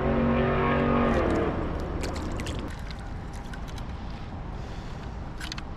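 A motor engine hums steadily and then fades away over the first couple of seconds, leaving a low rumble with scattered small clicks.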